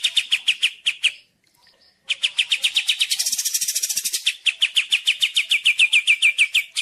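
Songbird song from a masteran recording: fast runs of sharp, falling chirps, about nine a second, broken by a pause about a second in, with a higher, rougher trill over it for about a second midway.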